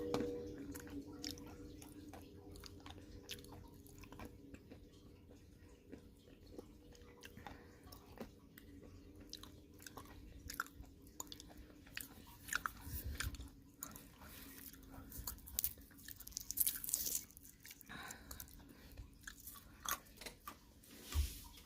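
Someone chewing crunchy nuts, with irregular crisp crunches and bites.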